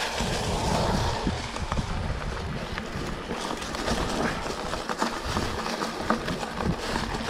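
Mountain bike rolling slowly over dry leaves, twigs and branches on an overgrown forest path: a steady rustle with many small crackles and snaps under the tyres, over a low rumble.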